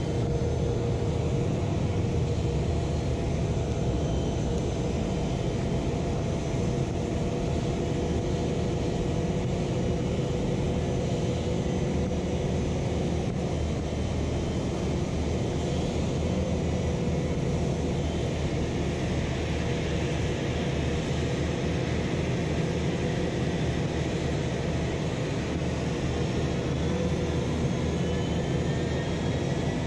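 Steady rumble of a pushback tug moving a Boeing 777-300ER, with the airliner's steady jet whine over it. Near the end a whine begins to rise and keeps climbing: a GE90 jet engine spooling up as it is started during the pushback.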